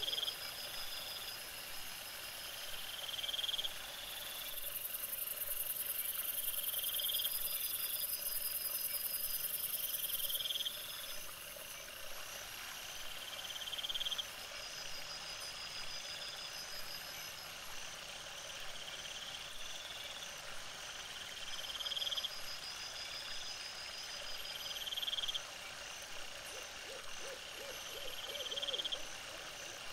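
Night-time woodland with animal calls repeating: a short rising call about every three to four seconds over fainter pulsed trills. A high hiss joins in for several seconds near the start.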